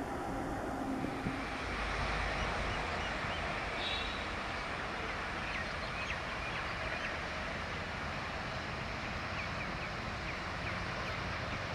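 A pair of ALCO WDM-3A diesel locomotives heard from far off as they approach: a steady, distant engine rumble and rail noise that holds level throughout.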